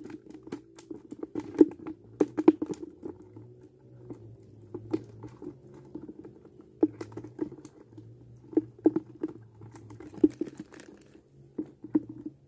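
Irregular taps, clicks and rustles of fingers handling a fishing hook and line close to the microphone.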